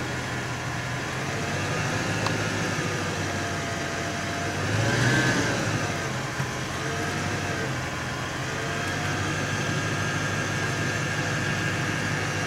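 Steady engine hum, with one louder swell about five seconds in that rises and dies away as a vehicle goes past on the wet road.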